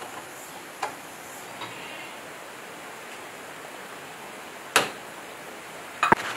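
Hand tools tapping and clicking against the metal parts of a diesel engine crankcase during assembly: a light knock about a second in, a sharp loud one just before five seconds, and a quick cluster of knocks near the end, over a steady background hiss.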